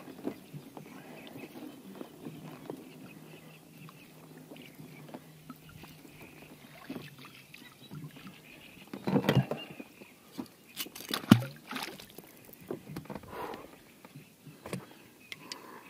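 Wet gill net being hauled by hand out of the water into an inflatable boat, water dripping and splashing off the mesh. A cluster of knocks and thumps against the boat comes about two-thirds through, one sharp knock the loudest.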